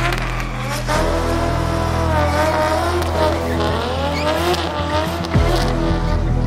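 Drift car's tyres squealing in a smoky burnout, the pitch wavering up and down as the engine revs, with a sharp pop about five seconds in. Background music with held bass notes runs underneath.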